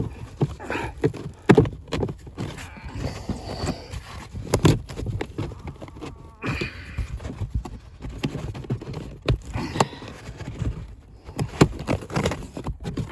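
Scraping, rustling and irregular knocks as the old, dust-clogged cabin filter is slid and worked out of its housing under the dashboard.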